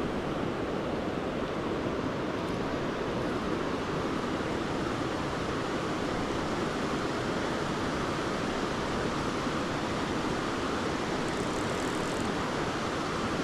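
Steady rushing of a high-running, rocky stream, its water pouring through a white-water riffle.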